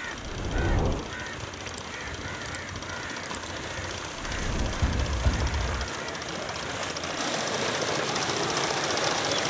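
Water gushing from a tube well's outlet pipe into an irrigation channel, with two spells of low rumble. In the last seconds the running sound of the pump's belt-driven three-phase electric motor grows louder, a fine, even rattle.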